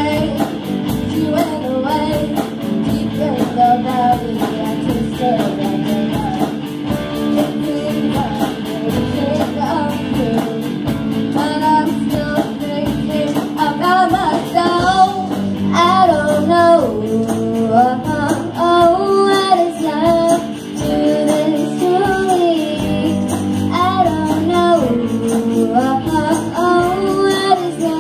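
A children's rock band playing live: girls singing the melody over electric guitars and drums.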